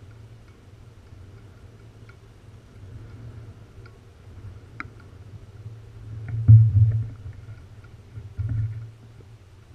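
Low, buffeting rumble of wind on an action camera's microphone, swelling twice, about six and a half and eight and a half seconds in, with a few faint clicks.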